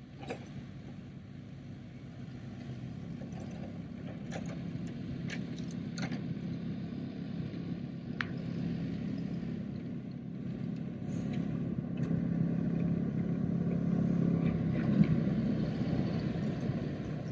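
A vehicle engine running steadily, gradually getting louder, with a few light clicks and knocks over it.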